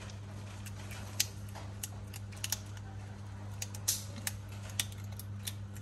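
Cats eating rice and fish from a plate: a run of small, irregularly spaced clicks and crunches as they chew and their food knocks on the plate, over a steady low hum.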